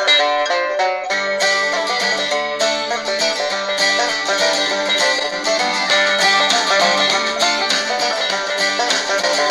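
Plucked-string, banjo-led music playing from an FM broadcast through the small three-inch speaker of a Tecsun GR-138 portable radio. The sound is thin, with little bass.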